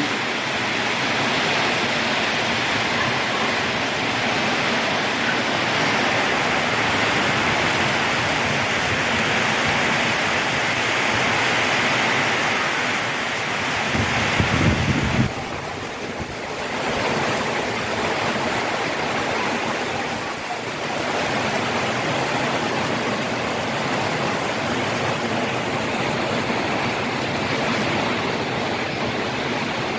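Heavy rain pouring down steadily, with a brief louder low rumble about halfway through.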